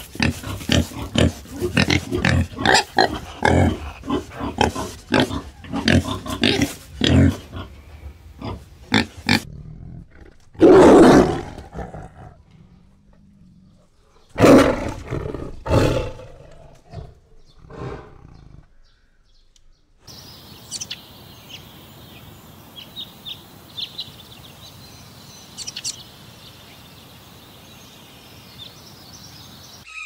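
Collared peccary grunting in a quick run of short grunts, followed by a couple of louder, longer growls. Later come faint, high squeaks over a quiet background.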